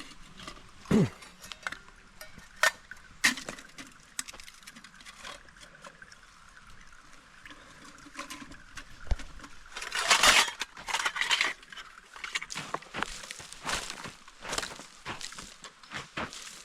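Scattered knocks, scuffs and light clinks, with a longer scraping rush about ten seconds in.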